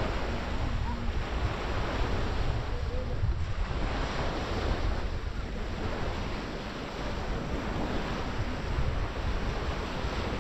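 Small waves breaking and washing up on a sandy beach, a steady wash of surf, with wind rumbling on the microphone.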